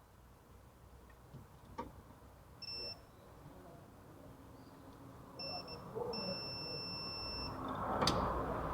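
Electronic beeping: a short beep, then a brief beep and a longer one lasting about a second and a half. A sharp click comes about eight seconds in, over a low rumble that grows louder.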